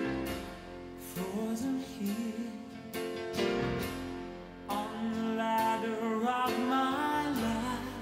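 Background music: a slow piece with plucked-string notes and a held melody line that wavers in pitch.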